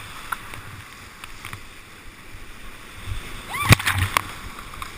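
Water sloshing and splashing around a small river boat as it is paddled through moving water, with a cluster of sharp knocks and splashes about three and a half seconds in.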